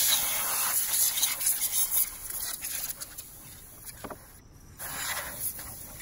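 Compressed air duster hissing in bursts through its straw nozzle, blowing dust out of a CPU heatsink. A long spray trails off about two seconds in, weaker puffs follow, and a shorter spray comes about five seconds in.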